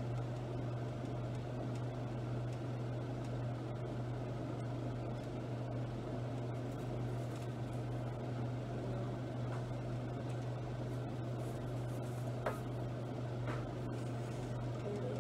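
Steady low machine hum with an even whirring noise, the sound of a running fan or kitchen appliance, with a couple of faint clicks near the end.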